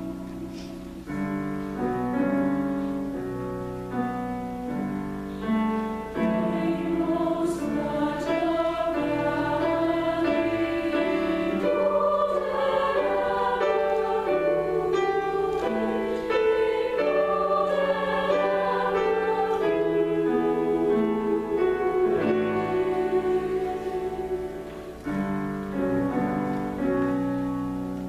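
High school girls' choir singing in layered, sustained chords, swelling to its loudest in the middle and falling away near the end.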